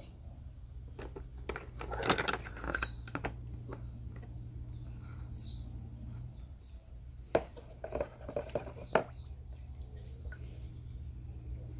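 Sharp clicks and knocks of tongs and small brass lamp parts against a plastic tub, in a cluster about two seconds in and another around seven to nine seconds. A bird chirps briefly a few times over a low steady hum.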